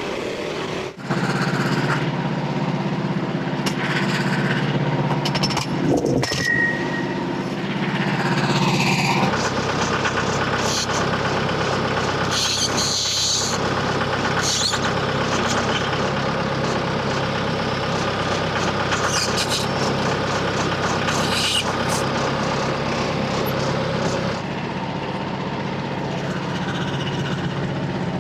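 Portable bandsaw sawmill's gas engine running steadily while milling a large red oak log; its pitch drops about nine seconds in and comes back up near the end.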